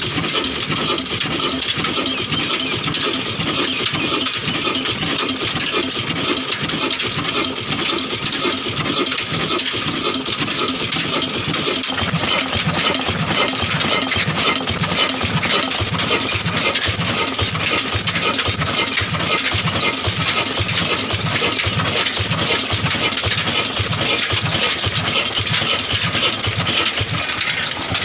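Old 18 hp stationary diesel engine running steadily with an even, rapid beat. Its sound fills out about twelve seconds in.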